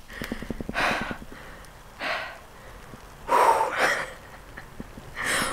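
A woman breathing hard, about four heavy breaths roughly a second apart, as she catches her breath and shakes with excitement. Light clicks in the first second.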